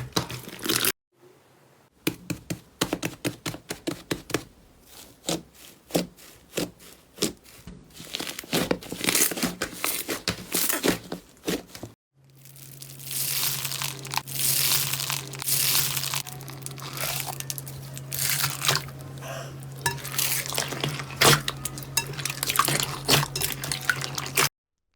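Slime being pressed and poked by hand, giving runs of small crackles, clicks and pops, in several short clips that cut off abruptly about one, two and twelve seconds in. From about halfway a low steady hum sits under the crackling.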